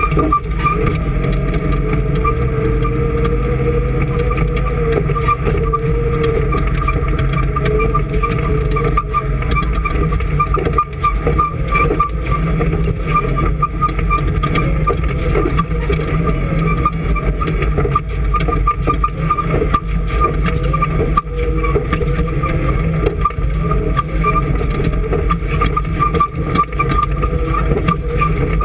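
An engine running steadily, with a constant low drone and a steady higher tone over it.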